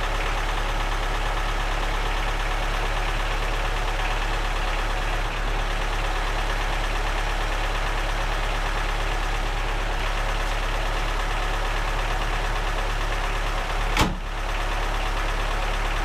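Lada Niva engine idling steadily just after a jump start. About two seconds before the end, one loud slam as a car bonnet is shut.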